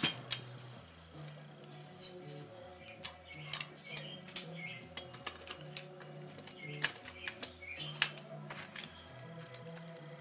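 Scattered light metal clinks and knocks of small tools and engine parts being handled at a workbench, over rock music playing quietly in the background.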